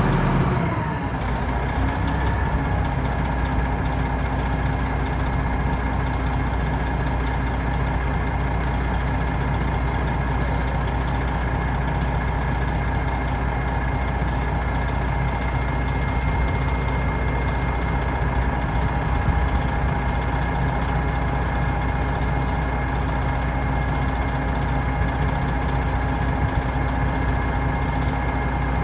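Large engine idling steadily. It settles down from higher revs in the first second or so.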